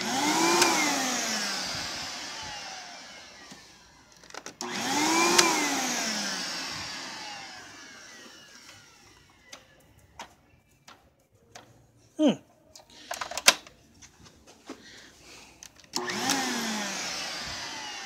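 Panasonic-built Kenmore Progressive upright vacuum motor switched on three times, each time whirring up at once and then winding down over a few seconds, with clicks in between. The brush roll is not turning, as the drive belt is either missing or broken.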